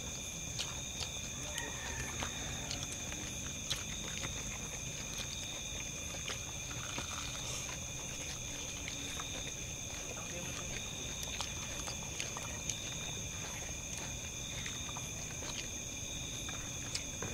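Quiet eating by hand: scattered faint clicks and taps of fingers and food on plates, over a steady high-pitched whine made of several held tones.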